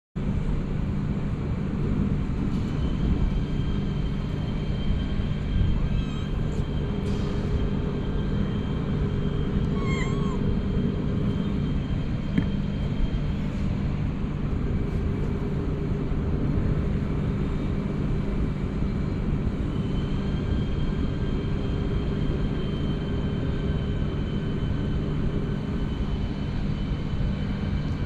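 Steady low rumble of a distant engine with a low hum, unchanging throughout. A brief chirp about ten seconds in.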